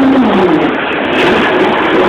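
A quahog boat's engine being throttled back, its pitch falling about a quarter of a second in, then revving back up about a second later to a higher pitch than before.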